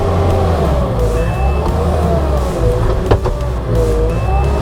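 Kubota tracked skid steer's diesel engine running hard under load, with a whine that slowly rises and falls as the hydraulics work. A sharp knock comes about three seconds in.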